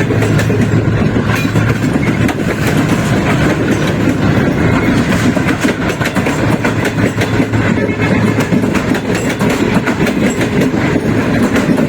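Train running on the track, its wheels clattering over the rail joints with many irregular clicks over a steady low hum.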